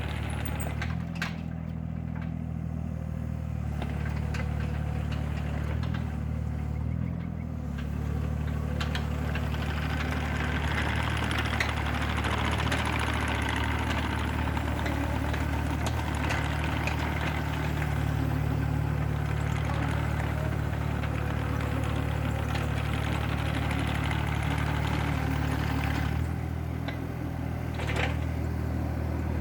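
Kubota mini excavator's diesel engine running steadily. Its note changes pitch a few times as the machine works. Through the middle stretch a busier mechanical clatter rides over it.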